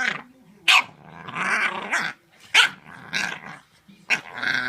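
A dog growling and grumbling in a string of outbursts, three times breaking into a sharp bark that trails off into a longer, wavering growl. It is a grumpy, complaining dog answering its owner back.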